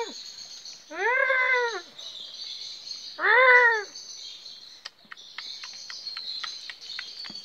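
Presa Canario puppies whining: two cries, each rising then falling in pitch, the second the louder, followed by a run of short clicks near the end.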